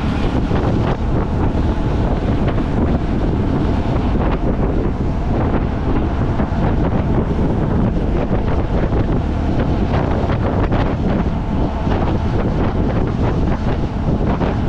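Wind buffeting the microphone: a loud, steady rumbling rush with faint crackles, as on a moving vehicle.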